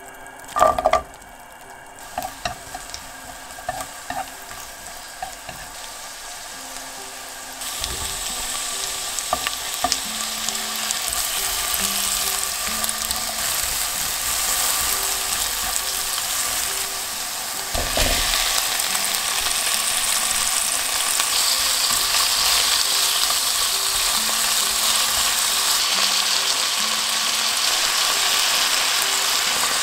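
Butter, sliced onion and garlic, then bacon sizzling in a pot, the sizzle growing louder as ingredients are added. There is a loud knock about a second in, a few lighter clicks after it, and a thump about eighteen seconds in.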